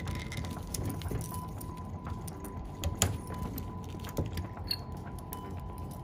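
Handling noise of super 8 film being worked off a plastic cartridge core: scattered light clicks and rustles of the film strip and plastic, with one sharper click about three seconds in, over a low steady hum.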